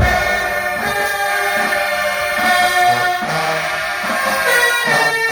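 Marching band brass section playing loud held chords together, coming in all at once on the downbeat.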